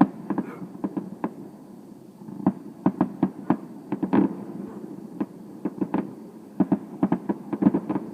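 Fireworks going off: a rapid, irregular series of sharp pops and bangs, some in quick clusters, over a low background rumble.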